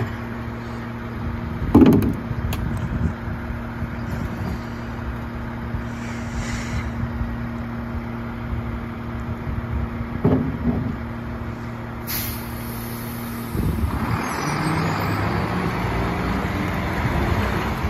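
Mack LEU garbage truck's engine idling steadily, with a loud bang about two seconds in as a plastic recycling bin is knocked against the rear hopper, and a smaller knock later. A short air-brake hiss follows, then the engine revs up, rising in pitch as the truck pulls away.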